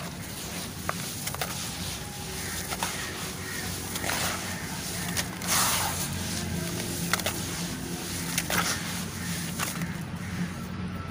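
Hands squeezing and crumbling a wet, gritty charcoal mix: squelching and crunching with many small crackles and clicks, and a louder crunch about five seconds in. A low steady hum runs underneath.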